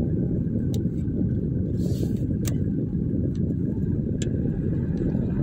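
Car interior noise while driving slowly: a steady low rumble of engine and tyres, with a few faint clicks.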